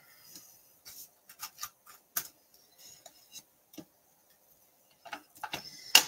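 Light clicks and taps at irregular spacing, about a dozen, the loudest about two seconds in: small stamping and die-cutting tools and paper being handled on a craft work table.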